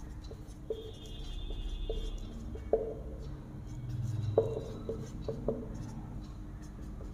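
Marker pen writing on a whiteboard: an irregular run of short taps and scrapes as words are written out.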